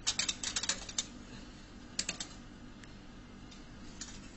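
A quick run of light clicks and taps in the first second, then two more clicks about two seconds in: a metal tape measure being worked among a vending machine's product spirals.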